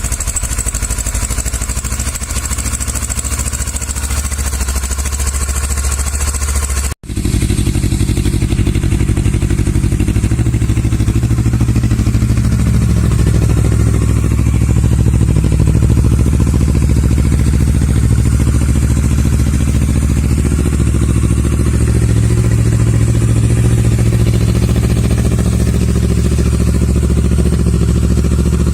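Kawasaki Versys 650 parallel-twin engine running steadily near idle through its exhaust. About seven seconds in, the sound cuts to a second recording with a much deeper, fuller exhaust note, fitting the LeoVince SBK aluminium slip-on run without its dB killer after the stock silencer.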